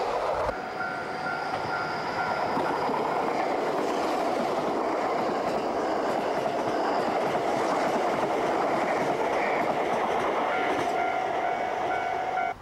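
A train running along the line: a steady noise of wheels on rails, with a steady whine heard in the first few seconds and again near the end.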